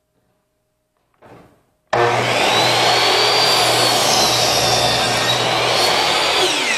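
Hitachi compact miter saw switched on about two seconds in, its motor running loudly with a high whine as the blade is lowered through a wooden board for a 45-degree cut. The whine sags in the middle of the cut and rises again. Near the end the trigger is let go and the motor winds down, its pitch falling.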